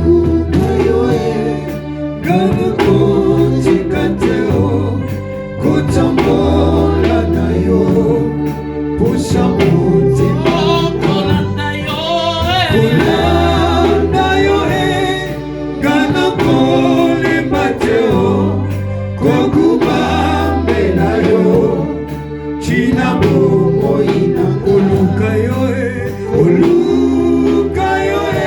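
Gospel worship song: voices singing over instrumental backing, with a repeating low bass pattern and regular percussive strikes.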